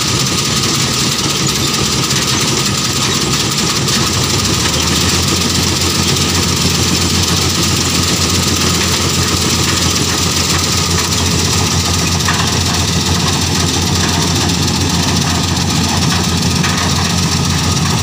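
A combine harvester runs steadily as it cuts wheat: a continuous engine drone mixed with the noise of its cutting and threshing machinery. A deeper engine hum comes in about four to five seconds in and then holds steady.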